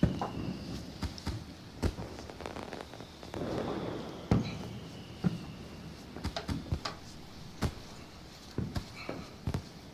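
Irregular knocks and clunks, roughly a dozen spread unevenly, like wood and tools being handled at a workbench, under a faint high tone that slides slowly down in pitch.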